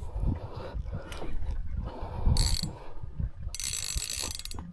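Spinning reel's drag buzzing in bursts as a hooked fish pulls line off: briefly a little after two seconds in, then for about a second near the end. Low knocks and rumble from handling the rod lie underneath.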